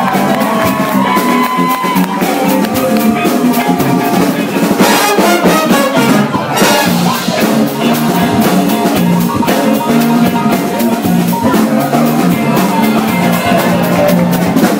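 Jazz big band playing live: brass section holding chords over a drum kit keeping a steady beat.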